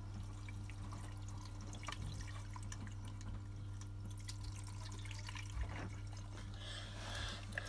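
Water trickling and dripping as it is poured by jug through the detergent drawer into a Zanussi ZWC 1301 washing machine, with scattered small drips over a steady low hum.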